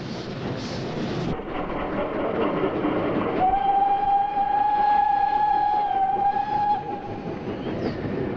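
Steam locomotive whistle blown as one long steady note, starting about three and a half seconds in and lasting about three seconds, over the running noise of a slow-moving train.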